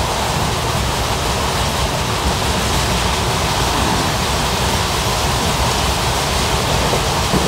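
Steady rushing noise of an ICF passenger coach running on the track, wheel and wind noise blended into an even roar with no distinct rail-joint clicks.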